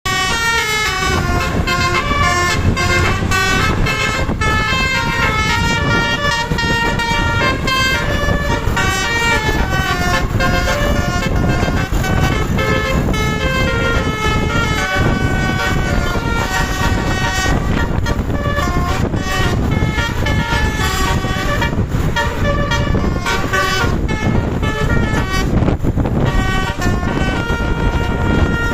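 Basuri V3 multi-tone telolet bus horn playing a tune, one held note after another, over a steady low rumble.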